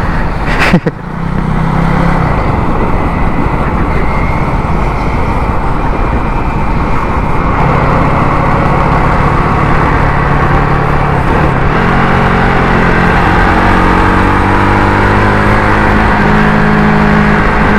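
Benelli TRK 251's single-cylinder engine running as the motorcycle is ridden, with wind rushing over the microphone. The engine note shifts several times and climbs in pitch over the last few seconds. A single sharp knock comes just under a second in.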